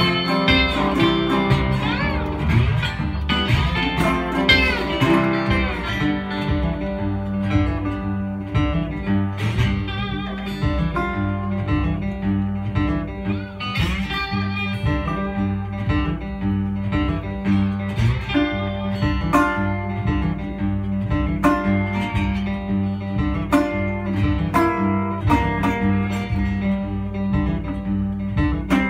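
Instrumental guitar break played live by a resonator guitar and a second guitar over a steady low bass pulse, with bending, sliding lead notes in the first few seconds.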